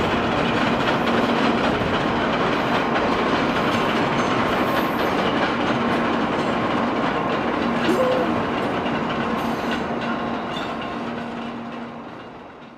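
Electric trains running through the station, a steady rumble and rail clatter with a faint steady motor hum, fading out near the end.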